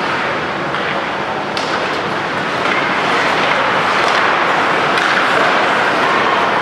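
Ice hockey game in an indoor rink: a steady hiss of skates on the ice and arena noise, a little louder from about two and a half seconds in, with faint clacks of stick and puck about one and a half and five seconds in.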